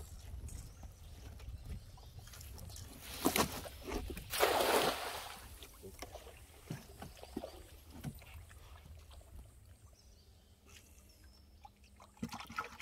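Water splashing and sloshing around a canoe. There are a couple of sharp knocks just after three seconds in, and a louder splash about a second later, followed by scattered small knocks and drips.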